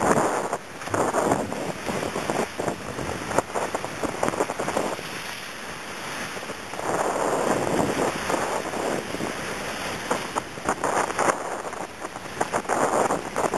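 Rushing water and wind aboard a Class 40 racing yacht sailing at high speed: a loud hiss of water along the hull and spray, with wind buffeting the microphone. It swells louder in long surges three times, at the start, in the middle and near the end.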